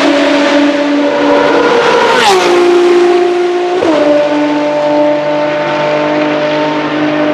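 Ferrari FXX-K track cars with 6.3-litre V12 engines passing at high speed, each holding a steady, high engine note. The note drops in pitch sharply as one car goes by about two seconds in, and again as another passes near four seconds in.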